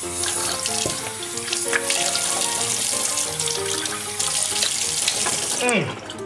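Water running steadily from a tap, stopping shortly before the end, over background music.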